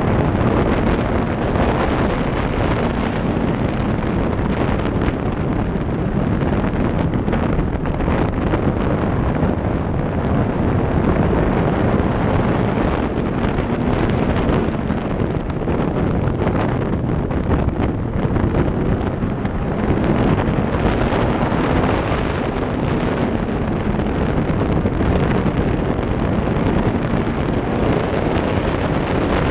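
Wind rushing over the microphone of a camera mounted on a Yamaha R1 sport bike at riding speed. The bike's inline-four engine runs steadily underneath, its pitch wavering slightly.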